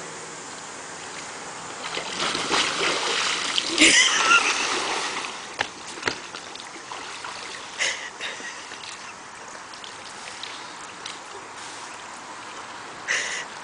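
A man tipping off an inflatable pool chair into the water: a big splash starting about two seconds in and loudest near four seconds, then water sloshing with a couple of smaller splashes later on.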